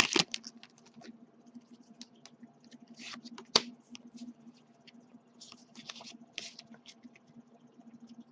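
Pokémon trading cards sliding against each other in the hands as they are moved through the stack: soft scrapes and light clicks, with one sharper click about three and a half seconds in.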